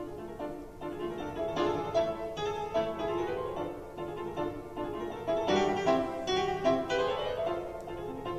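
Solo concert grand piano played live, heard from the audience seats: a busy passage of quick notes that swells louder a couple of times.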